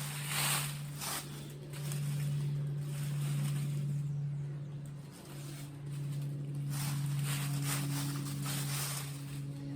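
Leaves and branches of a water apple tree rustling and swishing in bursts as someone moves through it picking fruit, over a steady low hum.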